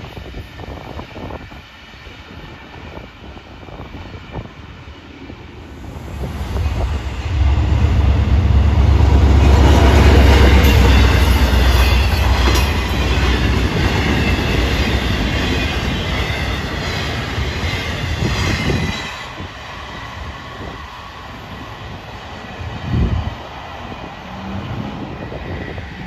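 A freight train of container flatcars rolls past close by. Heavy wheel rumble and clatter, with some high wheel squeal, builds a few seconds in, is loudest through the middle, then eases. A single sharp bang comes near the end.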